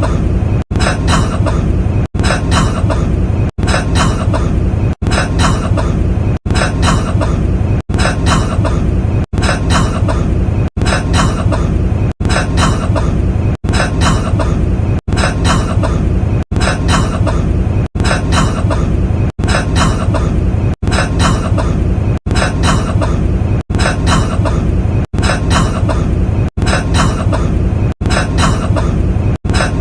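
A man's cough played on a loop: the same short cough clip repeats about every second and a half, with a brief cut to silence between repeats.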